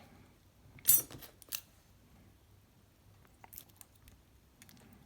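Small metal lock parts and tools being handled: a brief scrape-like rattle about a second in, then a few faint sharp clicks.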